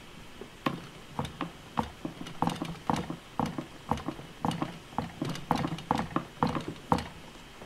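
Fingertips pressing and tapping Play-Doh into a mould on a hollow plastic playset base: a quick, uneven run of soft knocks, about three or four a second, that stops shortly before the end.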